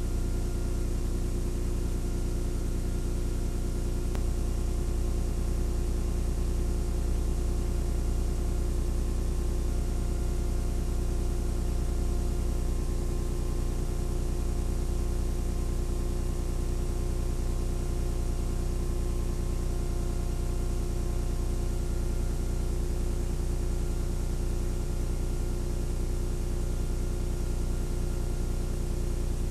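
Steady low machinery hum with a few faint steady tones above it and some hiss: the running noise of a deep-sea submersible on its dive recording.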